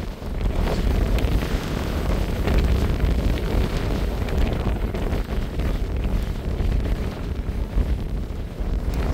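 Wind buffeting the microphone: a low rush of noise that swells and eases with the gusts.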